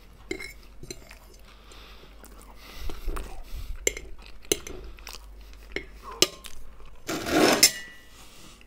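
Stainless fork scraping and clinking against a ceramic plate, gathering up the last bits of fried potato, with scattered sharp clicks. About seven seconds in comes a short, loud breathy noise.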